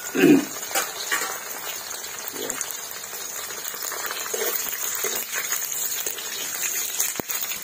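Dried red chillies frying in hot oil in a large metal kadai, a steady sizzle with a ladle stirring and scraping now and then. A short voice-like sound right at the start is the loudest moment.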